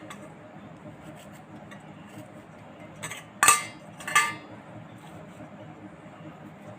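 A knife tapping and clinking against a plate as spongy coconut flower is cut into small pieces. Two sharp, ringing clinks come a little past halfway, with faint taps around them.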